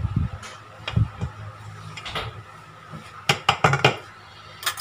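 Scattered clinks and knocks of kitchen utensils against a stainless steel mixing bowl, with a quick cluster of taps between three and four seconds in.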